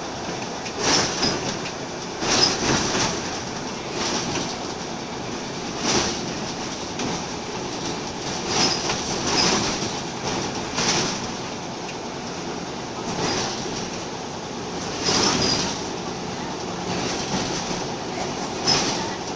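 Inside a Scania L94UB Wright Solar single-deck bus on the move: steady engine and road noise, broken by about a dozen short, sharp rattles of the body and fittings every second or two.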